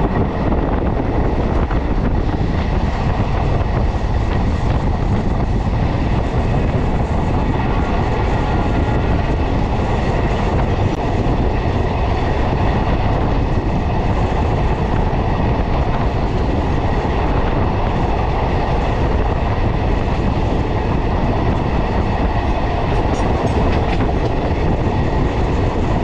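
Passenger train running steadily at speed, heard from an open coach doorway: the continuous rumble and rattle of the coaches' wheels on the track.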